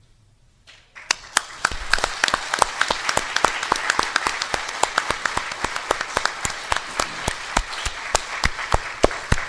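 Audience applauding. It starts about a second in and carries on steadily, with sharp individual claps standing out from the mass of clapping.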